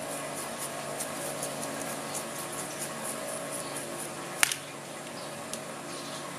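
Faint small clicks and scrabbling of fishing-reel ball bearings being cleaned with a cotton swab in a plastic box of lighter fluid, with one sharper click about four seconds in. Under it runs a steady background hum.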